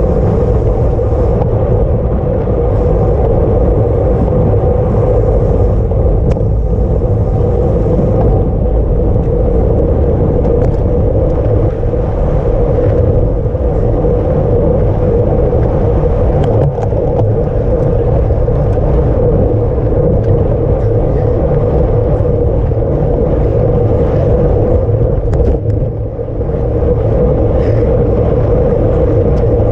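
Steady wind rush and tyre rumble on a camera riding with a bicycle at race speed, loud and unbroken, with a short lull about 26 seconds in.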